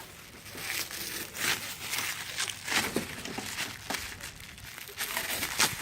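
Protective plastic film being peeled off a new headlight lens, crinkling and crackling in irregular bursts.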